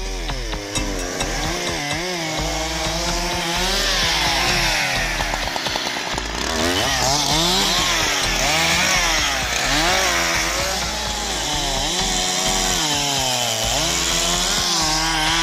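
Husqvarna 365 two-stroke chainsaw cutting through pine branches, its engine revving up and dropping back over and over as the chain bites and is eased off between cuts.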